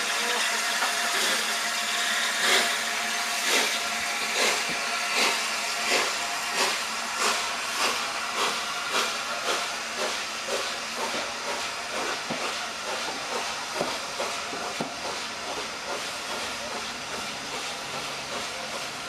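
Steam locomotive pulling a train away: a steady hiss of steam under exhaust chuffs that quicken from about one a second to nearly two a second as it gathers speed, then fade into lighter clicking as the coaches roll past.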